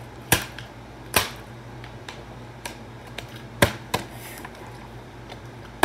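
Partly filled plastic water bottle being flipped and knocking against the floor: several short, sharp knocks at uneven intervals, over a steady low hum.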